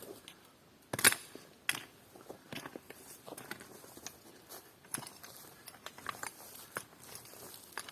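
Irregular small clicks and knocks, with a sharp knock about a second in and a smaller one just after.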